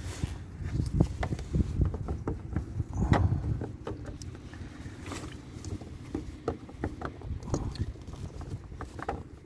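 Irregular clicks, knocks and rubbing of hands working a plastic dust cover back onto the rear of a car headlight housing, over a low background rumble.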